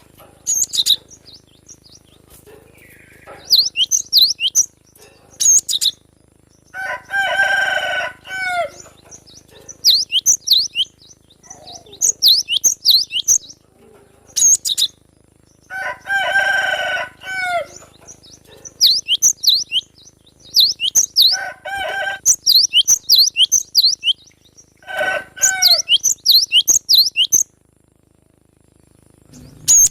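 Cinereous tit (gelatik batu) calling in quick bursts of high, sharp chirping notes, repeated many times. Four longer, harsher and lower calls come in between.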